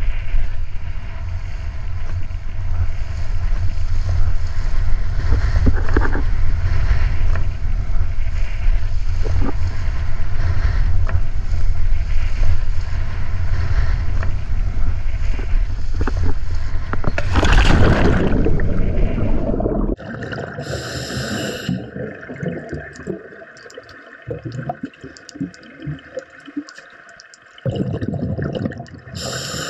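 Water rushing and sloshing over a steady low rumble, swelling briefly about 17 seconds in. About 20 seconds in it cuts abruptly to quieter gurgling and bubbling with scattered clicks and two short bursts of hiss.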